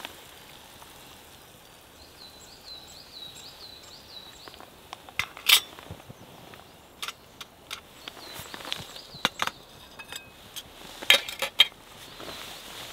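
Sharp metal clinks of a Trangia stove's simmer ring being fitted onto the spirit burner, the loudest about five and a half seconds in, followed by a few more light metallic clinks. A faint sizzle of bacon and sausage frying runs underneath.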